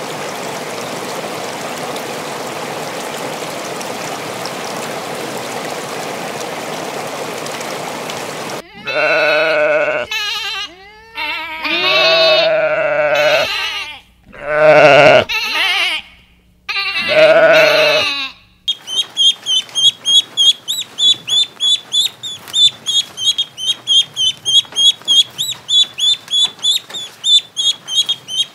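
Sheep bleating loudly about five times, after a steady even noise at the start. From about halfway in, ducklings peep in a quick, even series of high chirps, roughly three a second.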